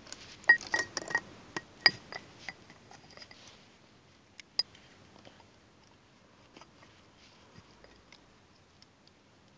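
Plastic LEGO pieces clicking and clattering as they are handled and fitted: a quick run of sharp clicks over the first few seconds, then a few scattered clicks.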